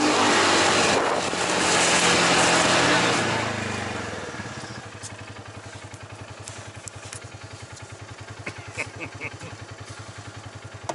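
Polaris side-by-side's engine running under way with loud rushing noise, then easing off about four seconds in to a quieter, steady running with a fast, even low pulse.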